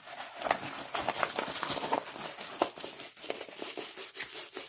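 Plastic film and paper crinkling and rustling as a diamond painting canvas is turned over and rolled up by hand, in a steady run of small irregular crackles.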